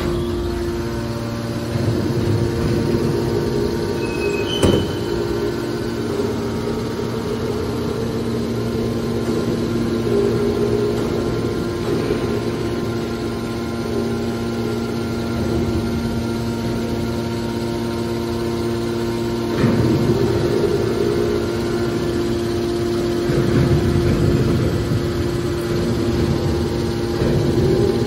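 Hydraulic scrap-metal baler running: its electric motor and hydraulic pump give a steady hum that swells louder a few times under load, with one sharp click about five seconds in.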